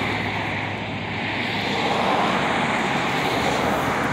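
Steady rumble of vehicle traffic, with a low continuous hum under it.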